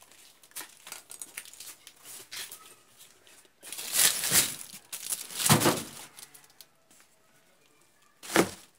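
Plastic wrapping on new tyres and woven sacking crinkling and rustling as the tyres are handled. Small scattered rustles, two louder crinkling bursts of about a second each in the middle, and a short sharp rustle near the end.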